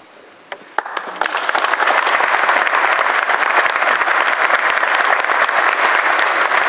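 Audience applause: a few single claps in the first second, then swelling into steady, dense clapping.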